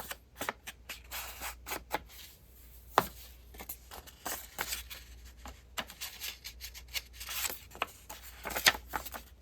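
Inking the edges of a piece of paper with a craft tool: irregular light taps and brushing rubs on paper, with a sharper click about three seconds in and another near the end.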